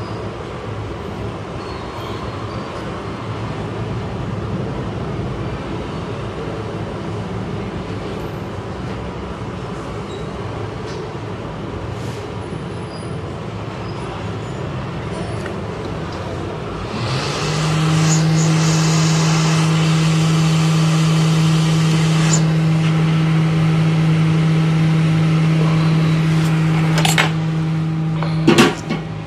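Hot air rework station blowing a steady rush of air onto a phone motherboard to desolder a shorted component. About 17 seconds in a louder steady hum sets in, and a few sharp clicks come near the end.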